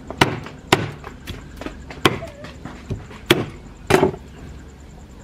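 Cleaver chopping raw chicken on a wooden chopping board: about five sharp knocks at uneven intervals.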